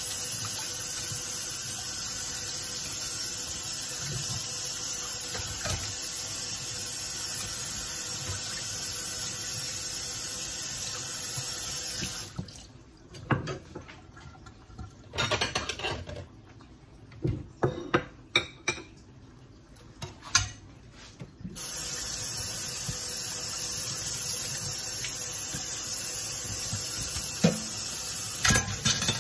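Kitchen tap running in a steady stream, shut off about twelve seconds in. Dishes and bowls clink and knock for several seconds before the tap runs again.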